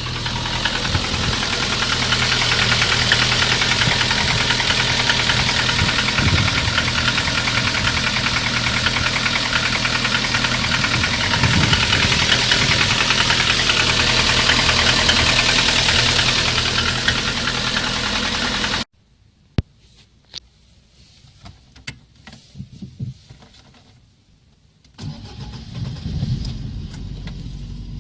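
Lada 2114's 1.6-litre 8-valve VAZ-11183 engine running steadily. About two-thirds of the way through it cuts off suddenly, leaving scattered clicks and knocks, and a quieter running sound comes back near the end.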